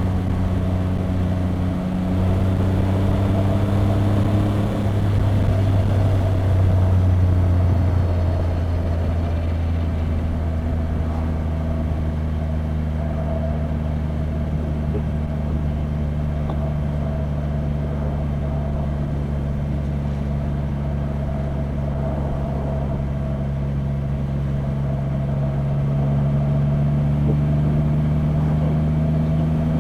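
Triumph Rocket 3 R Storm's 2458 cc three-cylinder engine running under way, heard from the rider's microphone with wind rush over it. The engine note drops about a quarter of the way in, holds steady, then slowly rises near the end as the bike accelerates.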